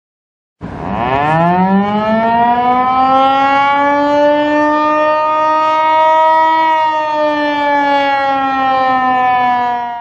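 Outdoor warning siren (civil defense siren) winding up from a low growl to a steady high wail over about a second, holding, then sagging slightly in pitch and fading out at the end.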